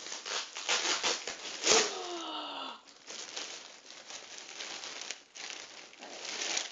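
Clear plastic packaging bag crinkling and rustling in irregular bursts as a jacket is pulled out of it, busiest in the first few seconds. About two seconds in, a short falling vocal sound.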